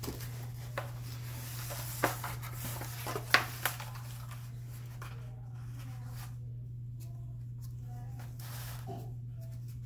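A cat clawing at a corrugated cardboard scratcher: scratchy rasping through the first few seconds, with a few sharp knocks about two and three and a half seconds in, then fainter. A steady low hum runs underneath.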